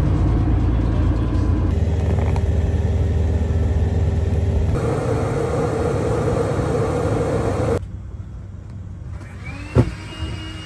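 Low, steady vehicle rumble heard from inside a moving vehicle, in several short clips cut together. Near the end the rumble drops away, and a single sharp knock is heard.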